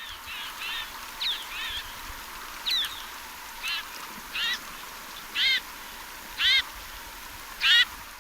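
A mountain bird giving a series of short, harsh calls, roughly one a second, with the last three the loudest. Fainter, quicker calls overlap in the first couple of seconds.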